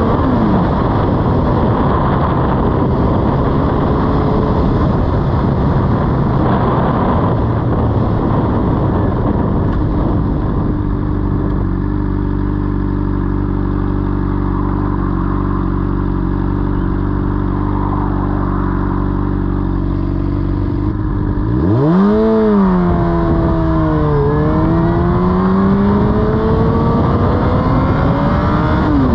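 Honda sport bike engine running at a steady pitch for most of the time, then revving up as the bike pulls away about three-quarters through: the pitch climbs, drops at a gear change and climbs again.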